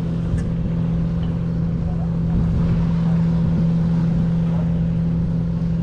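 A party boat's engine running steadily: a constant low drone with a steady hum over a rumble.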